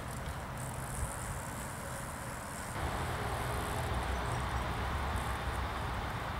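Steady outdoor noise with a low rumble and no clear individual events; its character shifts abruptly about three seconds in.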